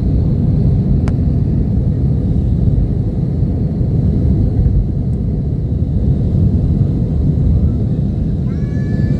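Loud, steady low rumble with no clear pitch. Near the end, a short falling meow-like call sounds over it.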